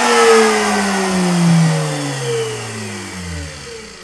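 Electric router's motor spinning down after its power is cut: a falling whine that fades steadily away.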